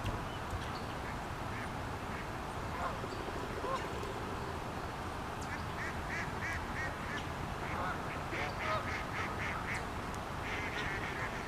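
Waterfowl calling in runs of short, quickly repeated quacks, mostly in the second half. Beneath them is a steady rush of flowing river water.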